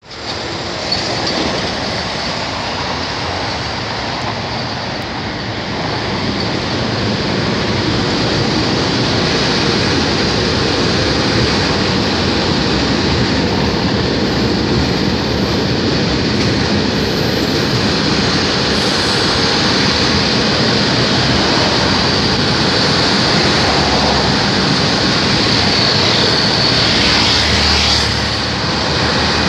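Freight train hauled by an FS E652 electric locomotive rolling past: a long string of loaded open wagons making a steady, loud noise of steel wheels on rails.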